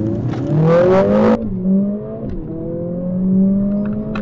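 Mercedes-AMG CLA45 S's turbocharged 2-litre four-cylinder accelerating hard from the cabin during a 0-60 run, revs climbing with two quick upshifts, about one and a half and two and a half seconds in.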